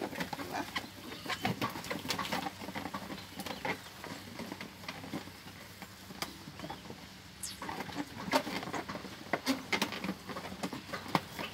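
Inflated latex balloons rubbing and squeaking against each other and against hands as they are twisted together into a cluster, in irregular short squeaks and clicks.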